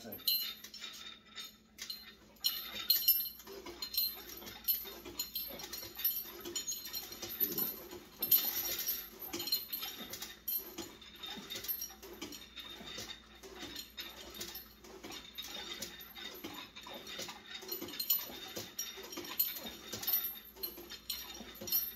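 Home-gym cable machine worked through lat pulldown reps: the weight stack, chain and handle clink and rattle again and again as the weight is lifted and lowered, along with the lifter's heavy breathing with each rep.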